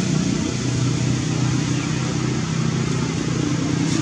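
A steady low mechanical hum under a continuous hiss, unchanging in level.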